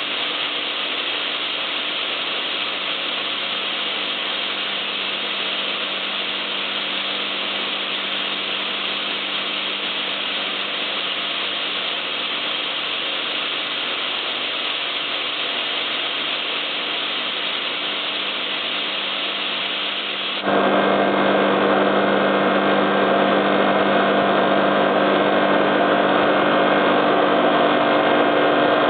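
Home-built air compressor made from two air-conditioner compressors with three-phase motors, running with a steady mechanical hum. About two-thirds of the way through, it suddenly gets louder and the hum grows stronger.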